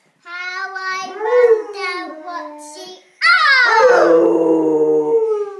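A little girl sings a lullaby, and about three seconds in a Rottweiler howls along with her: one long howl that slides down in pitch and then holds.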